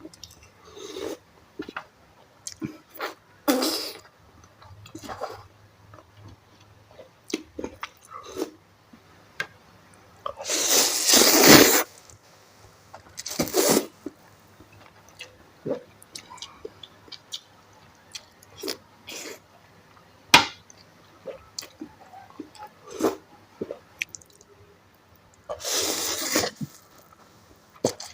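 A person eating instant noodles close to the microphone: soft chewing and small clicks throughout, with a few long, loud slurps, the biggest one about ten seconds in, another shortly after and one near the end.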